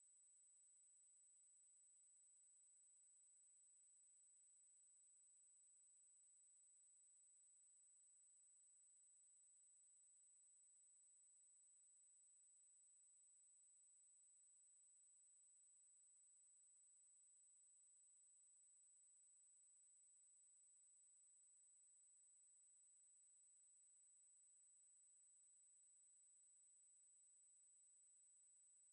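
A steady, high-pitched 8085 Hz sine-wave test tone, one pure unbroken pitch held at a constant level.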